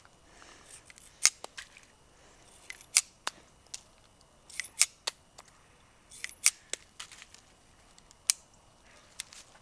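A series of sharp, light clicks and taps. The strongest come about every couple of seconds, with fainter ticks between, like small hard objects being handled.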